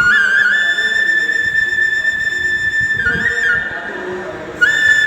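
Background music: a flute holds a long high note, plays a short ornamented run about three seconds in, then holds another long note near the end.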